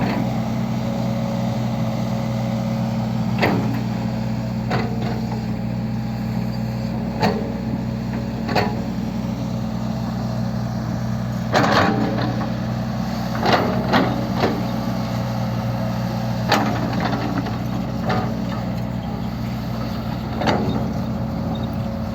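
Heavy diesel engine of a Cat 385C excavator running steadily while loading coal. Sharp knocks and clanks come every few seconds, with a cluster of them about halfway through, from the bucket and coal striking the truck bed.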